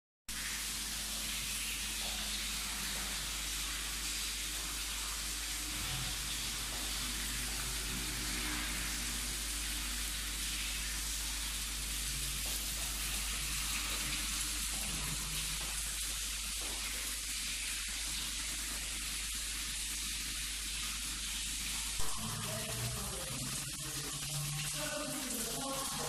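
Water from an aquarium waterfall splashing steadily into the tank below, a constant hiss over a low steady hum. About 22 seconds in there is a single knock, and music begins near the end.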